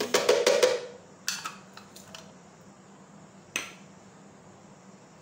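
A utensil knocking and scraping against a blender jar as ingredients are tipped in: a quick cluster of clicks in the first second, a few more taps about a second later, and one last knock near the middle.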